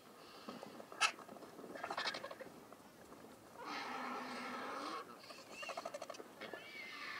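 Vultures squabbling at a carcass: harsh, drawn-out calls and rattling chatter, with a sharp click about a second in. The longest call runs for over a second near the middle, and another comes near the end.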